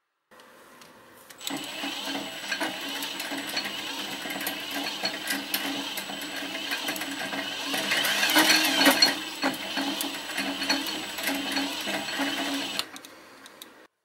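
Cordless drill spinning a homemade coil-winding jig, winding copper magnet wire into loops for a motor winding. The motor starts about a second and a half in, runs steadily with a hum, is loudest a little past the middle, and stops shortly before the end.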